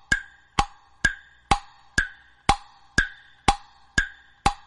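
Wood block struck in a steady beat, about two strikes a second, each knock with a short hollow ring at the same pitch.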